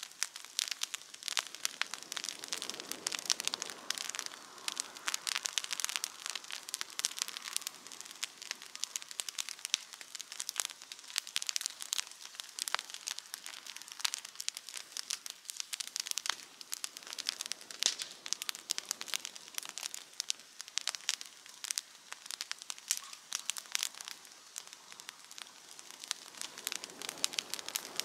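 Campfire crackling: a dense, irregular run of small sharp pops and snaps from burning wood.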